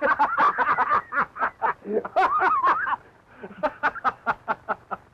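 A man laughing loudly in quick bursts, dying down to softer chuckles about three seconds in.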